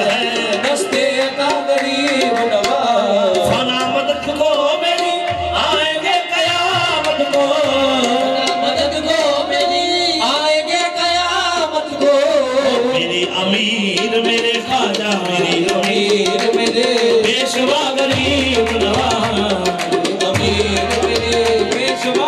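A qawwali party performing: several men singing, with harmoniums holding steady notes under the voices and tabla drumming.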